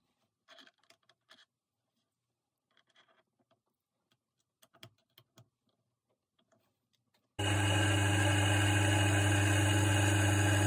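Faint clicks and metal taps as a small steel part is handled and tightened into a benchtop mini lathe's chuck. About seven seconds in, the lathe's motor and spindle start suddenly and run at a steady hum.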